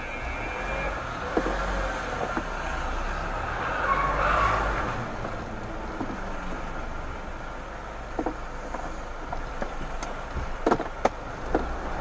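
A car driving slowly, heard from inside the cabin: a steady low engine and tyre rumble, with a few sharp knocks near the end.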